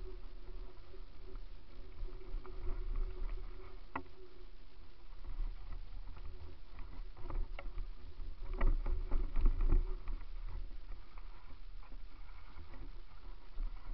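Mountain bike rolling fast over a gravel and dirt trail, heard from a camera mounted on the bike or rider: a steady low rumble of tyres and wind with scattered rattling clicks from the bike. The rattling is loudest for a second or two over rough ground about nine seconds in.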